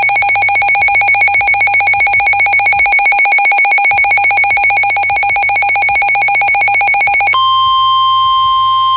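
Emergency Alert System alert tones: a loud, rapidly pulsing electronic tone for about seven seconds, then a steady single tone, the alert tone that opens a new warning broadcast.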